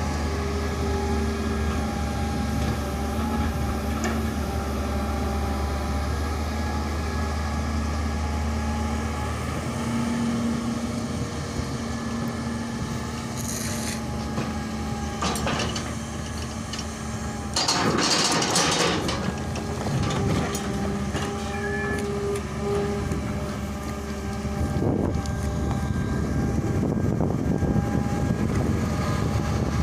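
Diesel engine of a Hitachi UH07 long-arm excavator running steadily under hydraulic load while its bucket digs and lifts soil. A louder scraping rush of earth about two-thirds of the way through, with shorter ones a few seconds before.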